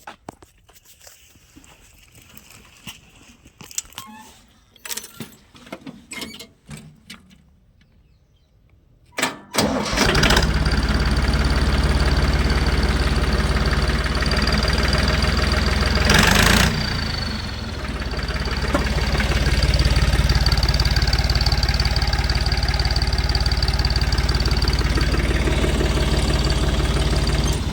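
Tractor engine starting about ten seconds in after a few quiet clicks, then running with a steady high whistle from a turbo whistle fitted in the exhaust silencer, which makes it sound like a turbocharged tractor. There is a brief rise in engine noise partway through.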